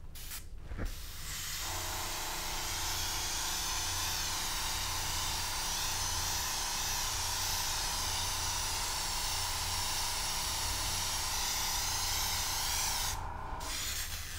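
Airbrush spraying thinned paint: two short spurts of air and paint, then a steady hiss from about two seconds in that cuts off shortly before the end. It is laying down a transition layer, a watered-down wash of the base coat.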